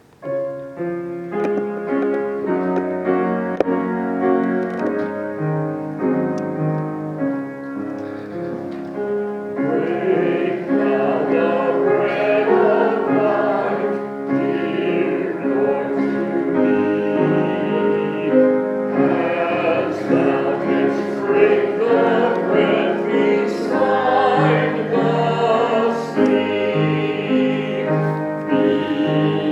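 Church music: a piano starts playing, and singing voices join in with it about ten seconds in.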